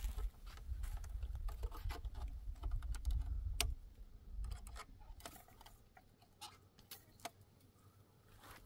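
Irregular light clicks and taps, over a low rumble that drops away about four seconds in.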